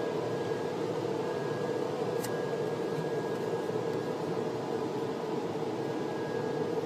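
Steady mechanical whooshing drone with a hum, like car-wash machinery running, with a faint high tone coming and going and one short click about two seconds in.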